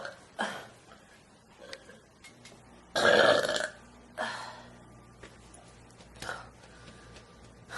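A person burping loudly on purpose: one long burp about three seconds in, followed by a shorter one, with smaller burps before and after.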